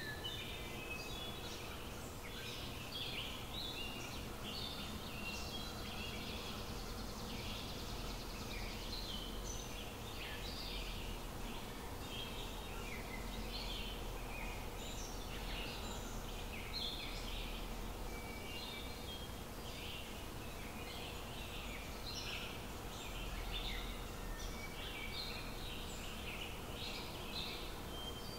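Chicken shorba bubbling at a boil in a wok: a dense run of small irregular pops and blips, over a faint steady hum.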